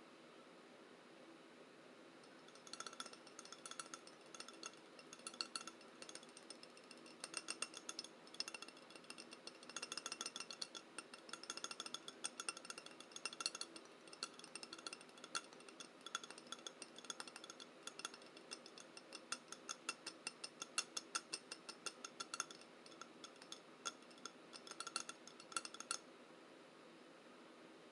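Quiet, rapid tapping on a bowl, in uneven runs of several taps a second, each tap ringing briefly at the bowl's own pitch. It starts about three seconds in and stops a couple of seconds before the end.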